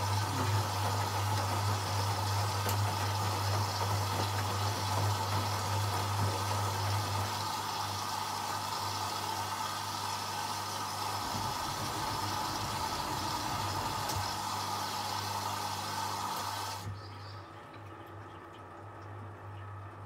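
Hotpoint Liberator 1826 washing machine taking in water: a steady rush of water over a low hum. The rush cuts off suddenly near the end as the inlet valve closes, and the hum carries on.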